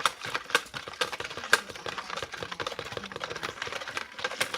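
Volcano-kit plaster being stirred into water in a bucket, the stirrer clicking and knocking irregularly against the bucket's sides several times a second.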